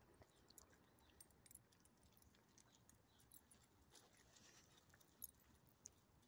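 Near silence, with faint scattered small clicks and ticks and a couple of slightly sharper ticks near the end.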